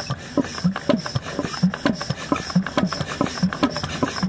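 Petter diesel engine turning slowly, with a regular rasping chuff at about three beats a second.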